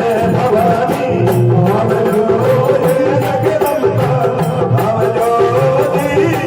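Devotional bhajan music between sung lines: a keyboard carries the melody over a steady percussion beat.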